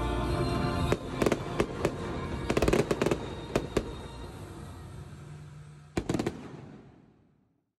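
Fireworks launched from a rooftop, a string of sharp bangs over show music, with a last cluster of bangs about six seconds in before the sound fades out.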